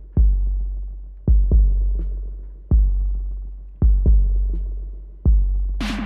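Roland Boutique drum machine playing a deep, long-decaying electronic bass drum in a sparse pattern, a single hit alternating with a quick double hit about every 1.2 seconds. Near the end a bright, noisy synth burst comes in and turns into a buzzing synthesizer tone.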